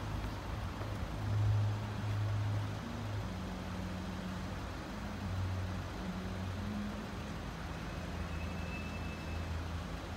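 Motor vehicle engines running with a low, steady drone that shifts slightly in pitch now and then.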